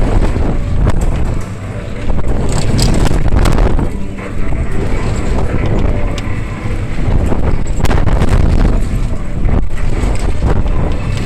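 Loud wind buffeting the microphone on a fast-moving fairground ride, over a heavy rumble and repeated clatters from the ride.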